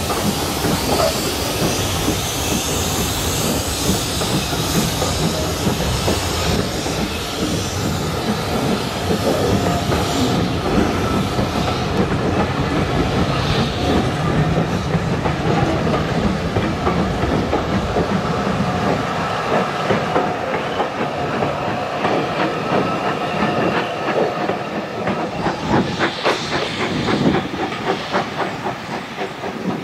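Steam-hauled train of coaches rolling past, its wheels clacking over the rail joints over a steady hiss of steam. The clacking gets thicker and quicker in the last third.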